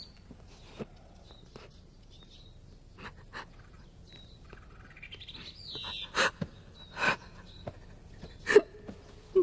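Faint birds chirping in the background, with three short, sharp, louder sounds in the second half.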